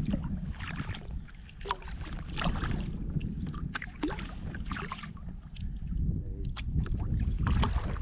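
Kayak paddling on calm water: the paddle blades dip, splash and drip in an uneven rhythm of strokes, over a steady low rumble of wind on the bow-mounted camera's microphone.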